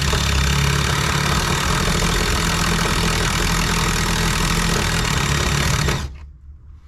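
Power drill running a step bit through the car's sheet metal to enlarge a hole, a steady grinding noise with a low hum, cutting hard enough that the metal smokes. It stops suddenly about six seconds in.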